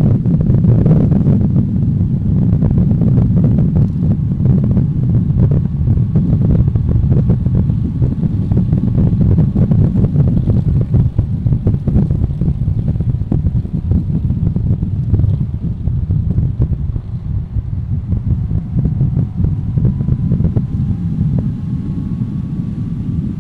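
Loud wind buffeting on a motorcycle-mounted camera's microphone at road speed, over the motorcycle's engine running underneath. A faint whine rises in pitch over the last few seconds.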